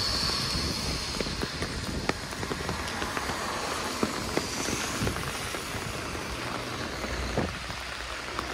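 Steady rain falling on wet pavement and street, an even hiss broken by many small sharp drop ticks.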